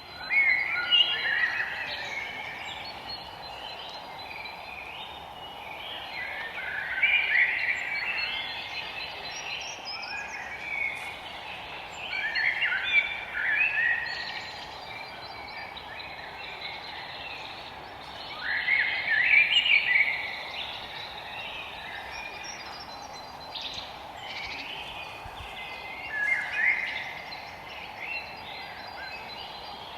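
Forest birdsong: a bird sings a short phrase of quick notes about every six seconds, the loudest sound, over fainter chirps from other birds and a steady background hiss.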